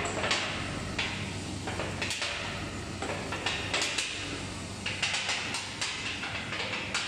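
Rib-rolling machine running with a steady hum while the thin stainless steel water-tank shell on its rollers clanks and rattles in irregular knocks, sometimes several in quick succession.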